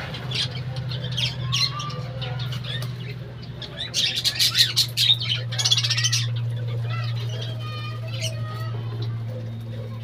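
A flock of budgerigars chattering and chirping, with a loud flurry of wing flapping as several take flight about four seconds in.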